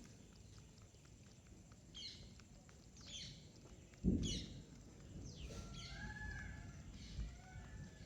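Birds chirping: a handful of short, falling calls a second or so apart, with a dull thump about four seconds in.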